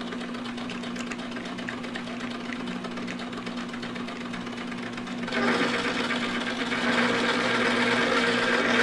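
Manrod MR 301 bench lathe running with a steady motor hum. About five seconds in, a louder, rougher noise joins it and continues.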